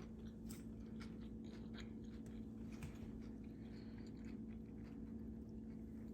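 A person quietly chewing a sandwich of bread, ham, salami and lettuce, with faint irregular wet clicks and crunches from the mouth. A steady low hum runs underneath.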